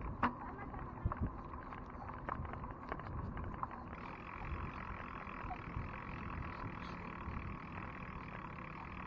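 Steady wind and road noise from riding a bicycle, with a few light clicks and knocks in the first couple of seconds.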